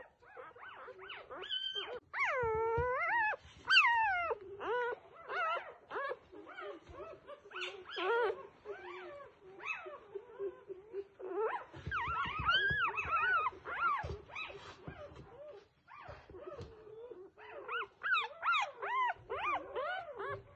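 Newborn F1B standard goldendoodle puppies squeaking and whimpering: a string of short, high-pitched cries and whines, their pitch sliding up and down.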